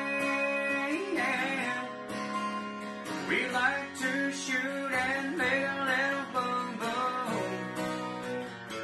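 Background music led by guitar, with a melody line over steady sustained notes.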